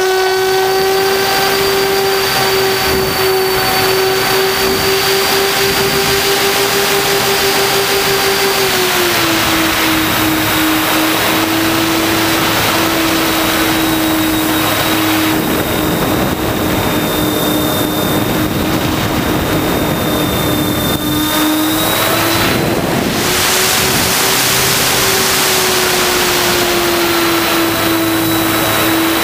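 RC model airplane's motor and propeller running under power through takeoff and climb: a steady high whine with rushing wind noise on the onboard microphone. The pitch drops a step about nine seconds in as the throttle is eased, and rises again a little after twenty seconds before settling.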